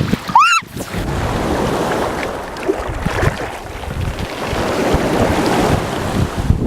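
Wind buffeting the microphone over the wash of sea surf at the beach. Just under a second in, a brief high-pitched squeal rises and falls.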